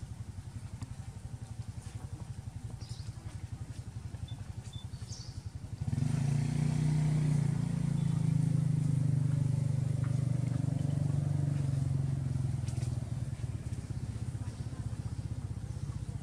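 A small engine running steadily with a fast, even low chug, growing much louder suddenly about six seconds in and easing back after about thirteen seconds.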